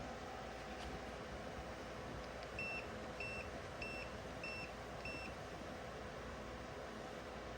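Five short, high electronic beeps, evenly spaced about two-thirds of a second apart, over the steady whoosh and hum of a 24 V rooftop air conditioner running.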